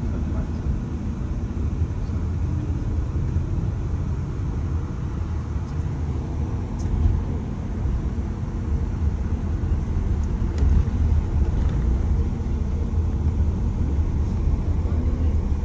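A moving vehicle's steady low rumble, with a few faint clicks and knocks over it.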